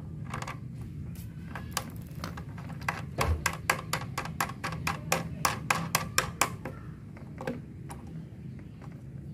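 Quick metallic clicking from fastening the seat bracket's nut under a child's tricycle seat, a few scattered clicks and then a run of about four a second for several seconds in the middle.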